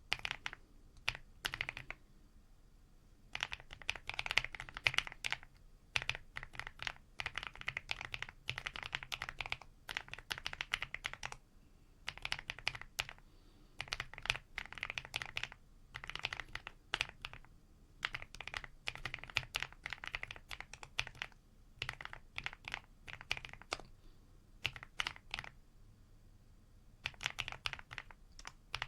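Mechanical keyboard fitted with EPOMAKER Creamy Jade 45gf linear switches being typed on. Rapid keystrokes come in runs of a few seconds, broken by short pauses.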